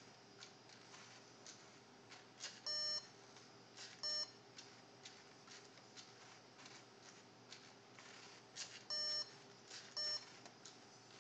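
Electronic beeps from a LEGO Mindstorms NXT brick's speaker: two pairs, each a longer beep followed by a short one about a second later, near 3 s and again near 9 s in. Faint irregular clicking runs underneath.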